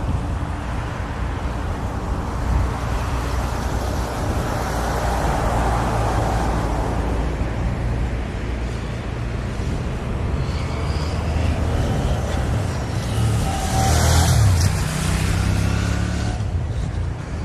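Road traffic passing close by, with one vehicle loudest about fourteen seconds in, over a steady low rumble of inline skate wheels rolling on the pavement.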